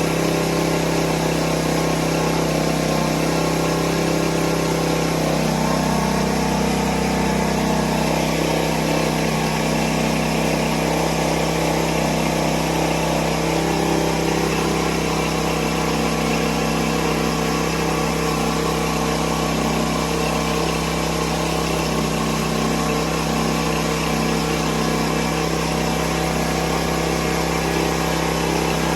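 Small gas engine of a 2.5 GPM pressure washer running steadily, its note shifting slightly about five seconds in.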